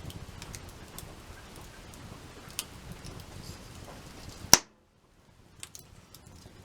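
Wood campfire crackling: scattered sharp pops over a low steady rush, with one loud pop about four and a half seconds in, after which the sound drops out for about a second before the crackling resumes.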